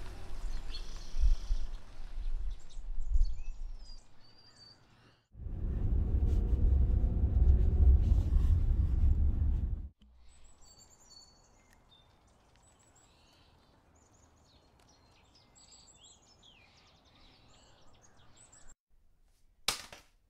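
A car driving away, its low rumble fading over the first few seconds. It is followed by a few seconds of steady low rumble that starts and stops abruptly, then quiet outdoor ambience with birds chirping, and a single sharp click near the end.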